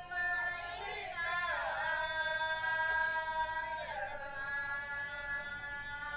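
A voice singing long, held notes, sliding down and back up between them about a second and a half in and again about four seconds in.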